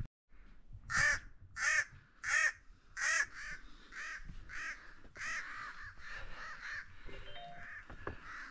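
A crow cawing over and over, about one and a half calls a second, the first four calls loudest and the rest softer.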